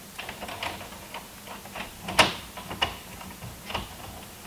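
Irregular clicks and light knocks of stiff electrical wire being pushed and tucked into a metal breaker panel, with one sharper knock about two seconds in.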